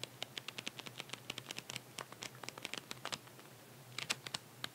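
Pages of a small paper flipbook being flicked past the thumb: a fast run of light paper clicks, about eight a second, then a brief pause and a few more flicks near the end.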